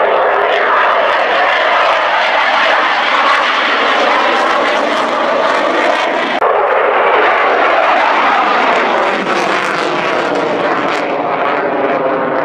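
Loud, steady jet engine noise from a Eurofighter Typhoon's twin Eurojet EJ200 turbofans as the fighter flies a display, with a slow whooshing sweep in its tone. It eases slightly in the last few seconds.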